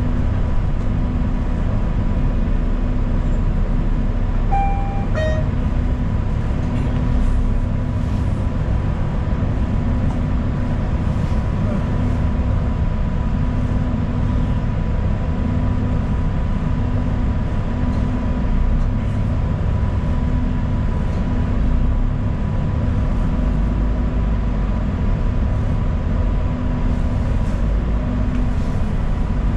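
Inside a moving city bus: steady engine and road rumble with a constant hum. About five seconds in, a short two-note electronic chime sounds, falling in pitch.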